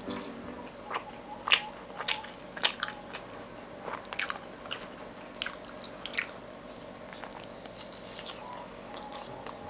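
Close-miked chewing of fried dough: a string of sharp bites and crunches, densest in the first six seconds, then sparser, softer chewing.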